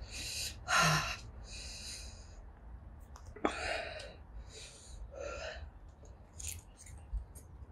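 A woman's short, breathy, hissing breaths through the open mouth, about eight in a row, in and out: panting against the burn of a freshly eaten Carolina Reaper chilli.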